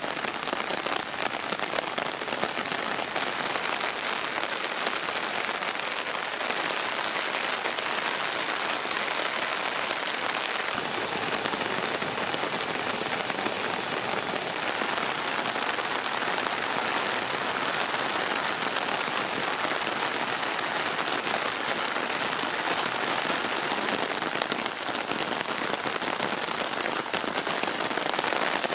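Steady rain falling on surfaces, an even hiss throughout, with a stretch of brighter, sharper hiss for a few seconds about eleven seconds in.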